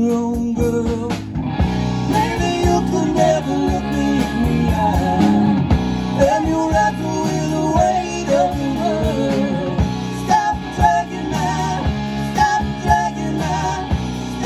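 Live rock band playing a song: electric guitars, bass and drums with keyboard, amplified through the stage PA.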